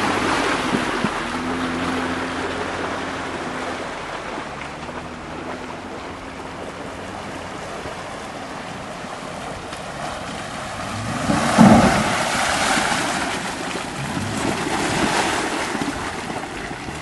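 Jeep Wrangler driving through deep mud and standing water, its engine running under the splash and slosh of water around the tyres. About eleven seconds in, the engine revs up and falls back, the loudest moment.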